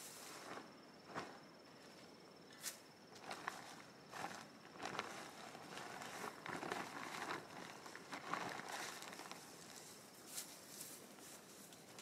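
Faint, irregular rustling and scuffing in dry leaves or vegetation, broken by scattered sharp crackles, busiest in the middle stretch. A faint steady high tone runs behind it.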